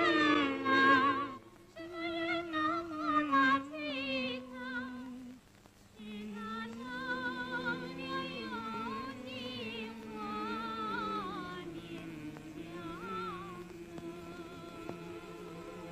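Solo singing in a trained, classical style with a wide vibrato, from a Chinese film song, over quiet accompaniment; the voice pauses briefly about five and a half seconds in before the next phrase.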